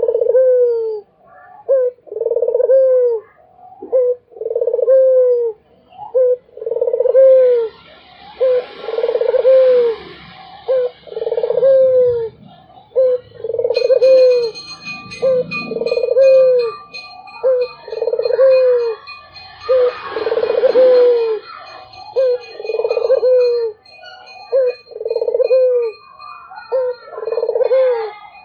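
Puter (Barbary dove) cooing continuously: a repeating pattern of short and long low coos, about one phrase every two seconds. A faint steady high whine joins about halfway through.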